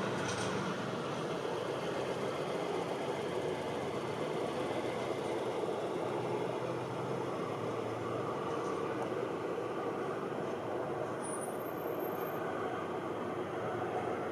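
Jet airliner flying overhead: a steady, even rumbling roar of jet engine noise.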